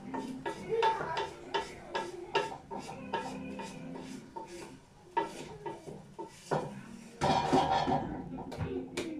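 Wooden spoon stirring chicken in a stainless steel pot, knocking against the pot in a quick uneven run, about two to three knocks a second, with a louder, denser stretch about seven seconds in.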